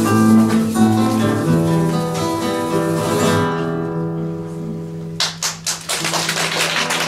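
Two nylon-string acoustic guitars playing flamenco-style music: held notes and chords ring and slowly die away, then about five seconds in a few sharp percussive strikes start a busier rhythmic passage.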